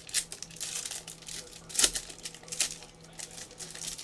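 Plastic crinkling and rustling as trading cards are handled in their sleeves and packaging, a string of short crackles with the loudest about two seconds in.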